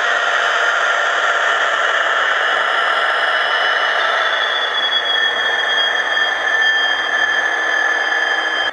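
Dapol Class 66 N gauge model locomotive running with its DCC sound on: a steady buzzing diesel-engine sound from its small speaker, with high whining tones, one of which falls slightly in pitch about halfway through.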